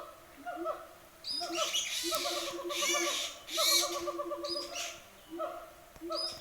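Birds calling: a short pitched note repeated several times a second that breaks into quick rattling runs, with louder harsh high calls between about one and four seconds in.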